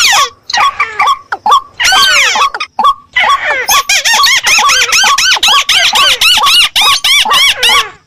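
Recorded calls of rice-field waterbirds played as a hunting lure: a fast series of high, arched notes, about four or five a second, with a short break about three seconds in.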